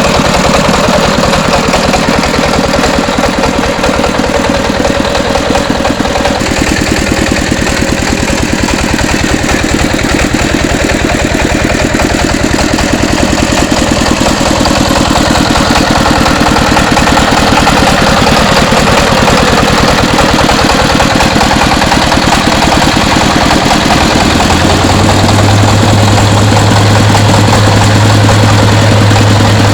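Engine of a three-wheeled mobile rice huller running loudly and steadily with a rapid, even beat. About 24 seconds in, a strong low steady hum sets in and holds.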